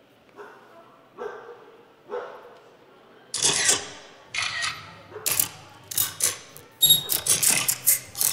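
A dog barking: a few softer yelps at first, then about three seconds in, a run of louder barks roughly one a second, coming quicker near the end.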